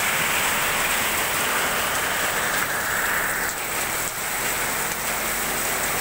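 Heavy tropical downpour pouring onto a paved street and pavement, a loud, steady hiss of rain.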